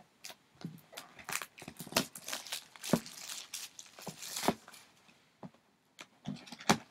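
A sealed 2011 Panini Prime Signatures football card box being torn open by hand. A quick run of tearing, crinkling and clicking cardboard and wrapper noises fills the first four and a half seconds, and a sharp click comes near the end.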